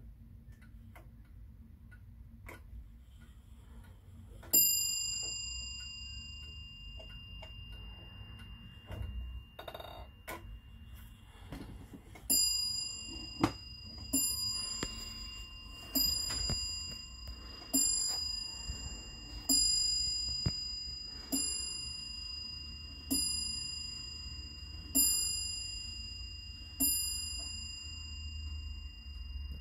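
Friese tailed wall clock with a Hermle eight-day movement ticking, striking its single bell once, then about eight seconds later striking nine blows about two seconds apart to count the hour. Each blow rings on and fades slowly.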